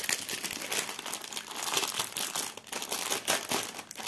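Packaging of a cross-stitch kit's embroidery threads crinkling as it is handled: a dense, continuous crackle.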